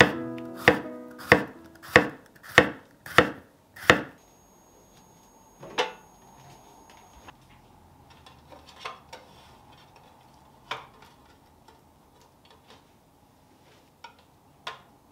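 Kitchen knife slicing a bell pepper on a wooden cutting board: seven even chops, about one every two-thirds of a second, stopping about four seconds in. After that it is much quieter, with a few light knocks as pieces of food are set down on a hot plate's pan.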